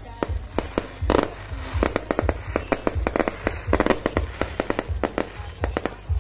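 Fireworks going off in dense, irregular pops and crackles, over music with a steady low beat.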